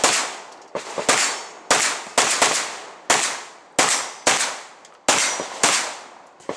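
Handgun shots fired in quick pairs, about half a second apart within each pair with short pauses between pairs, around ten shots in all, each sharp crack dying away over a fraction of a second.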